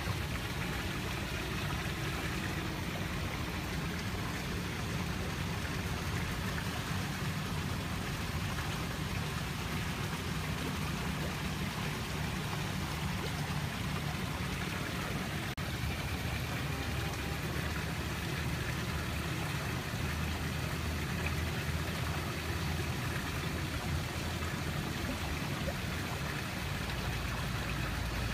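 Steady rush of running water with a low rumble underneath.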